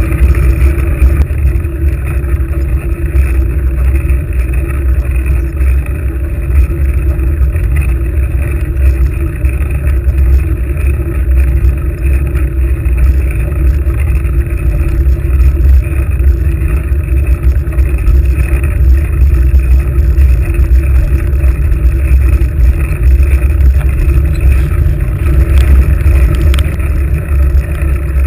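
Steady, loud, low rumble of wind and road noise picked up by a handlebar-mounted GoPro HD2 through its housing as the bicycle moves. It holds constant throughout, muffled, with no distinct events.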